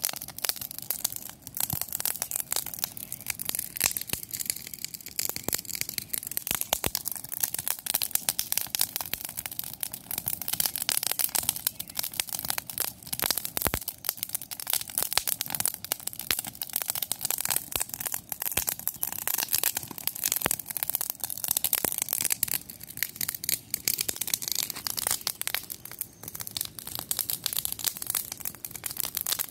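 Wood fire burning in an open fire pit, crackling steadily with a dense stream of sharp snaps and pops.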